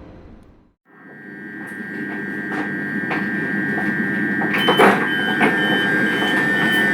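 A vehicle, from a bus and train sound-effect set, runs with a steady high whine over a rumble, with scattered clicks and knocks. About halfway through, short high beeps start repeating about twice a second.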